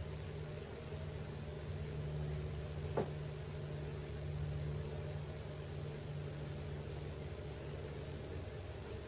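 Steady low hum with one sharp tick about three seconds in: sheet-metal heating ductwork popping as it expands or contracts with the change in temperature.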